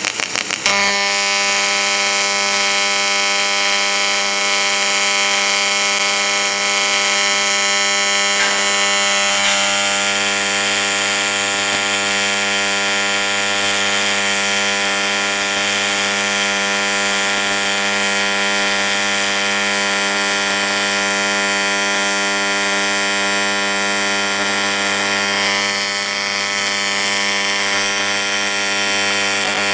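AC TIG welding arc on a cracked cast-aluminium engine block. After a brief crackle at the start as the arc strikes, it gives a loud, steady electric buzz over a hiss.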